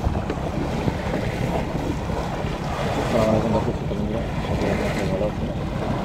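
Wind rumbling on the microphone over water sloshing and splashing as people wade waist-deep through a river, with faint distant calls about halfway through and again near the end.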